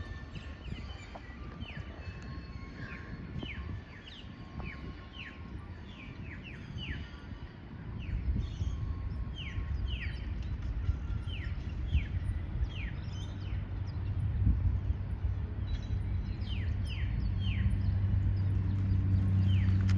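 Birds calling with repeated short, falling whistles, over a low diesel engine drone, the cane train locomotive's, that builds and grows steadily louder through the second half.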